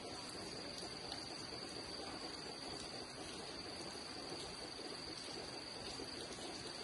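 Steady, high-pitched insect drone, a constant single tone, over an even hiss of rain.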